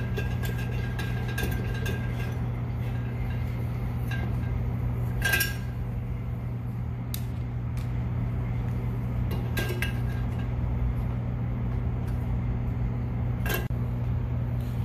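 Light metallic clinks of bolts and tools being handled on the mower engine's muffler, with three sharper clinks, the first about five seconds in with a short ring. A steady low hum runs underneath.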